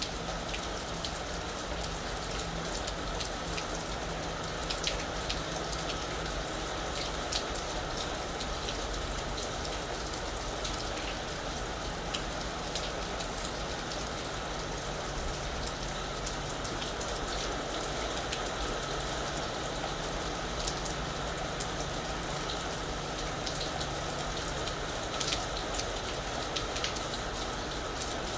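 Steady rain falling on a roof, a constant hiss with many individual drops tapping sharply through it.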